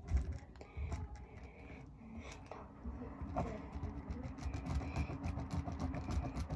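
Pen writing on paper close to the microphone: quick scratchy strokes that come faster and more evenly from about halfway through, with low thuds through the table.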